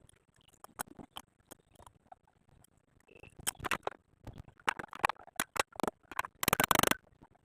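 Scattered clicks and knocks of installation work on a metal AC outdoor-unit wall stand, growing busier, with a short, dense, rapid rattle near the end.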